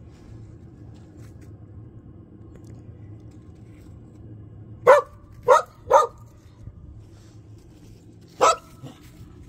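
Shetland sheepdog puppy barking: three short barks in quick succession about five seconds in, then one more near the end.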